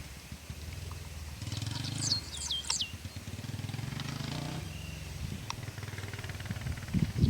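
Yamaha Raptor 660 ATV's single-cylinder engine running at a distance, rising and falling, with three quick bird chirps falling in pitch about two seconds in. A louder low rumbling comes in near the end.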